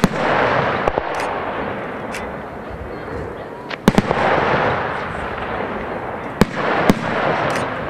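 Aerial firework shells bursting overhead: sharp bangs at uneven intervals, the loudest at the very start and about four seconds in, with a wash of noise between them that swells and fades after each big burst.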